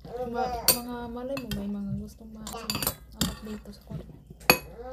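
Metal spoons clinking and scraping against stainless steel bowls of soup, with several sharp clinks and the loudest about four and a half seconds in. A voice sounds in a drawn-out, steady pitch for about two seconds near the start.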